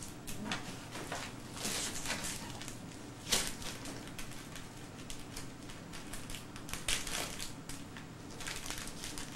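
Wrapping paper and a gift bag rustling and crinkling in irregular handfuls as a present is unwrapped, with a sharper crackle about three seconds in. A faint steady low hum lies underneath.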